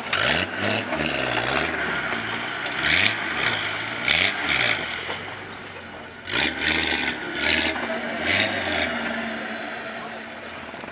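Off-road 4x4's engine revving in repeated surges, its pitch rising and falling about six times as it works over a steep, rutted dirt track, each surge coming with a burst of rough noise.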